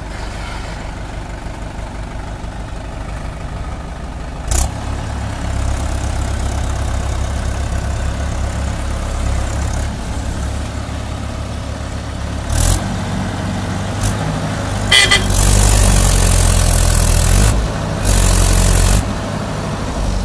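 Mahindra 585 DI tractor's diesel engine running under load in mud, revved up in surges: a steady low rumble that grows louder about four seconds in, with the loudest surges in the last quarter.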